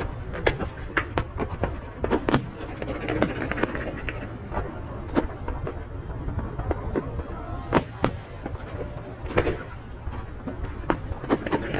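Aerial fireworks bursting in a rapid, irregular series of sharp bangs and pops, a couple each second, over a steady low rumble, with music playing underneath.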